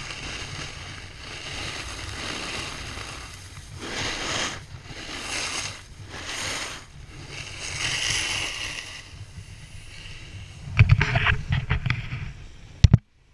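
Snowboard sliding and carving over groomed snow, a rushing scrape that swells with each turn, with wind on the microphone. Near the end come loud rubbing and knocks on the camera and its pole, then a sharp click, after which the sound drops away suddenly.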